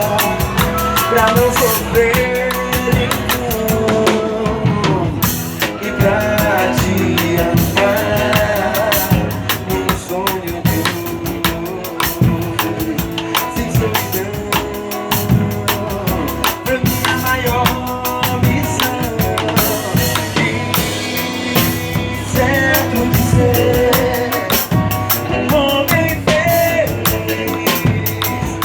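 Instrumental stretch of a song: a drum kit keeps a steady, busy beat under melody instruments, with no singing.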